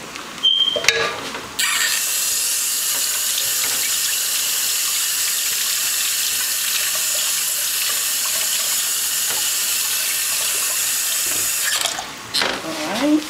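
Kitchen sink tap running steadily for about ten seconds as hands are washed under it, starting after a couple of short knocks and shutting off near the end.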